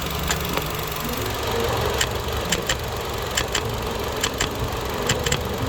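Running car engine heard through a mechanic's stethoscope: a steady hum with irregular sharp clicks, which the mechanic judges to be a noisy belt tensioner.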